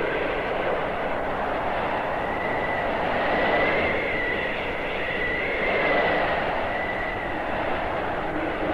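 Arctic blizzard wind blowing hard: a continuous rushing howl that swells and eases every couple of seconds, with a faint high whistle that wavers up and down through the middle.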